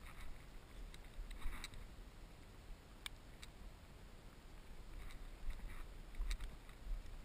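Faint outdoor ambience: a low rumble on the microphone, with scattered rustles and two sharp clicks.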